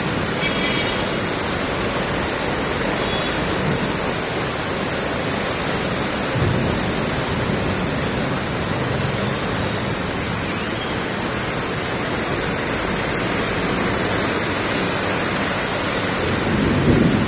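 Heavy monsoon rain pouring steadily, a dense even hiss of rain on a flooded road, with traffic driving through the standing water. A low rumble builds near the end.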